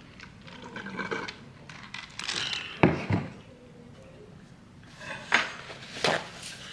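Kitchenware being handled: several irregular knocks and clatters of dishes and utensils, the loudest a pair close together about three seconds in.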